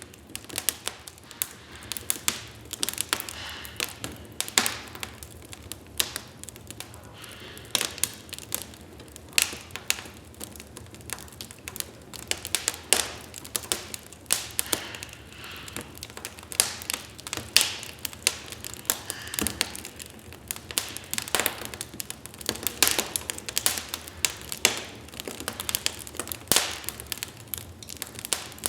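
Wood fire in a fireplace crackling: a steady stream of irregular sharp pops and snaps over a low hiss of burning.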